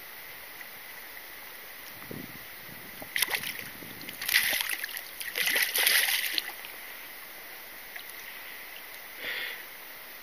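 Hooked brown trout thrashing and splashing at the surface beside a landing net as it is brought in, a burst of splashes from about three seconds in lasting roughly three seconds, then one smaller splash near the end. Steady river flow underneath.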